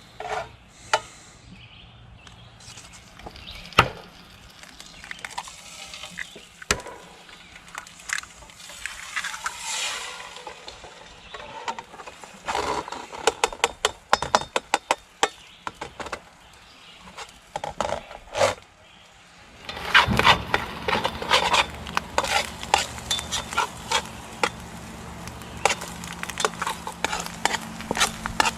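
Camp cooking: a utensil clicking and scraping against a pan and dishes, with food sizzling in the pan. The clatter gets busier, over a steady hiss, from about two-thirds of the way in.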